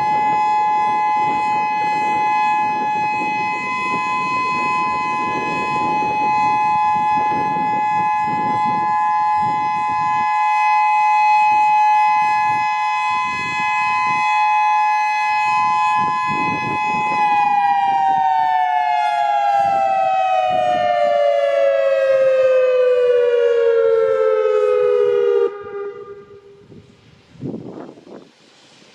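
Whelen WS-2000 electronic outdoor warning siren sounding a steady two-note chord during a siren test. A little past halfway it starts gliding down in pitch in a simulated wind-down, then stops about four seconds before the end.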